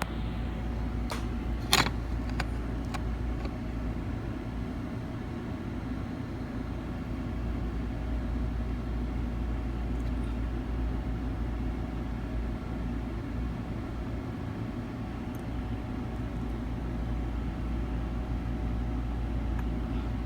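Steady low hum and rumble, like a running machine or fan, with a few sharp clicks a second or two in.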